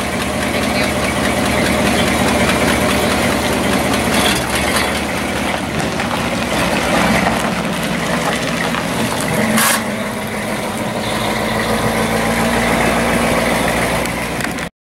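Ford Fairlane convertible's engine idling at the exhaust, then pulling away and driving off, with a sharp click about halfway through.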